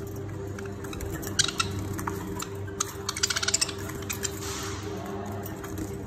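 Caged budgerigars chirping: two sharp chirps a little over a second in, then a quick run of short chirps about three seconds in.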